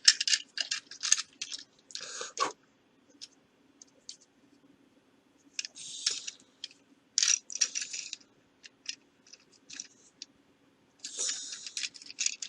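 Plastic parts of a Transformers Robots in Disguise Blizzard Strike Optimus Prime action figure clicking, scraping and rattling as the figure is transformed by hand. The sounds come in irregular clusters with short pauses.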